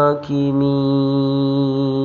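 Male voice reciting the Quran in murottal style, holding one long steady note on a drawn-out vowel after a brief break about a quarter second in.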